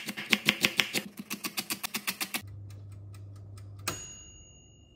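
Kitchen knife rapidly chopping red onion on a cutting board, about six chops a second, stopping about halfway through. A low steady hum follows, ended by a single click.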